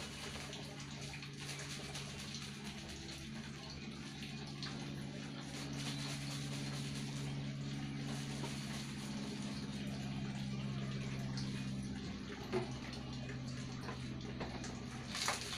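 Water splashing and sloshing as 1.5-litre plastic bottles are rinsed and shaken by hand, over a steady low hum. There is a sharp knock about twelve seconds in and another near the end.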